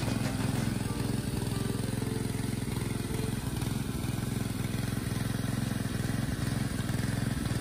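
Pond fountain running: a steady low motor hum with a wash of spraying water.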